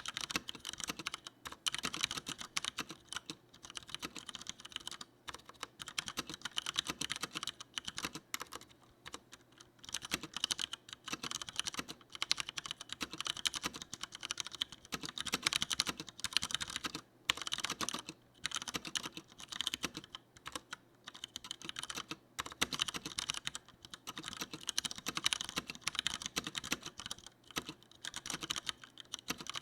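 Typing on a Leopold FC900R mechanical keyboard with tactile Cherry MX Brown switches: a quick, continuous run of keystroke clacks broken by a few short pauses.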